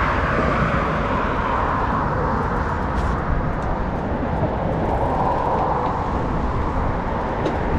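Steady rushing noise of wind buffeting the microphone of a camera on a moving bicycle, with a deep rumble underneath and road noise.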